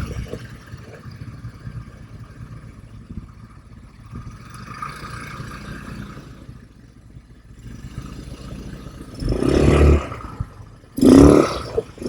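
ATV engine running at low revs with clattering and knocks as it rolls over rough ground, and two loud surges of noise in the last few seconds.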